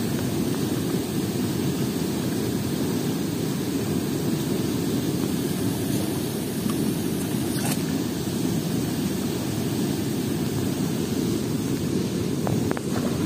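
Steady low rumble of fast-flowing, foaming river water.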